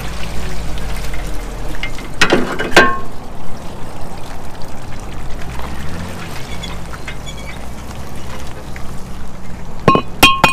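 Water splashing and trickling at the shallow edge of a boat ramp. A few sharp metallic clinks with a short ring come about two seconds in and again near the end, from a brake rotor used as a boat anchor, handled on its rope.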